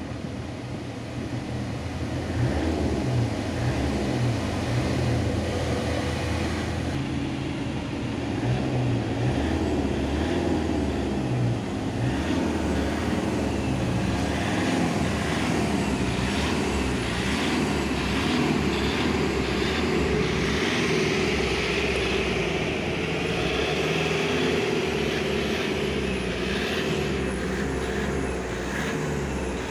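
Toyota HiAce van's engine being revved hard with the accelerator pedal, running at raised, shifting revs after rising about two seconds in.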